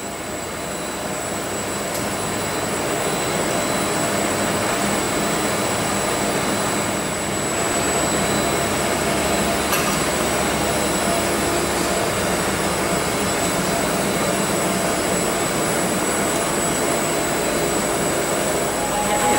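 Miyakoshi MTP-series wide-format textile inkjet printer running: a steady mechanical whir with a thin high whine over it. It fades in over the first few seconds.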